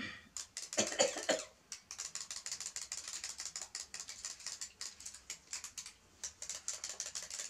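Clockwork wind-up toy chicks ticking as they hop on a floor mat: a dense, even patter of many small clicks each second. A few louder knocks come in the first second and a half.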